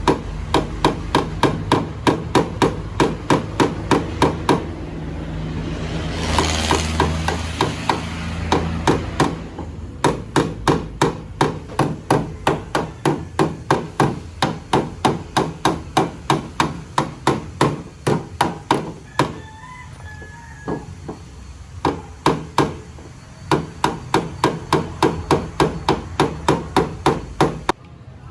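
A hammer striking repeatedly in fast, even runs of about three to four blows a second, with short pauses between runs. A brief rushing noise swells and fades about six to nine seconds in, over a steady low hum.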